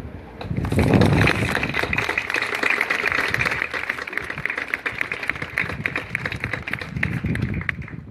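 Crowd applauding, the clapping thinning out near the end.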